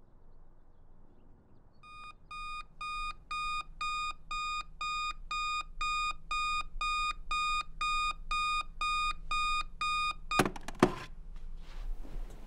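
Electronic alarm clock beeping in a steady, even rhythm of about two high beeps a second. It stops about ten seconds in with a few loud knocks.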